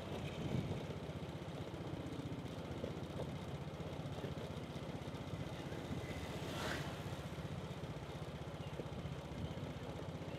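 Small motorcycle engine running steadily while riding. About six and a half seconds in, another motorcycle passes close by in a brief rush.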